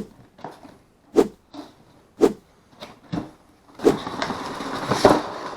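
Cardboard box being handled and opened: several sharp knocks and taps, then a stretch of rustling and scraping with more knocks near the end.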